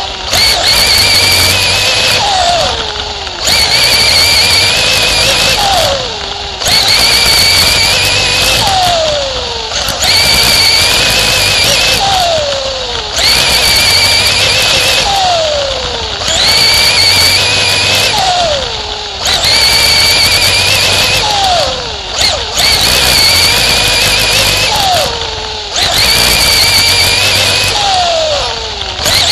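Race car engine running hard on a small dirt oval: it holds high revs down each straight, then drops in pitch and loudness as the throttle lifts for each turn, about every three seconds.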